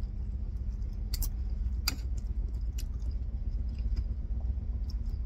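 Metal knife and fork clinking and scraping on a china plate, several sharp clinks with the two loudest between one and two seconds in, over a steady low hum.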